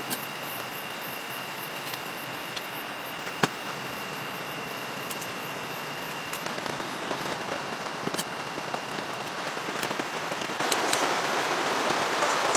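Steady rain, with scattered sharp ticks of drops and small knocks, the loudest about three and a half seconds in. Near the end the rushing noise steps up and gets louder.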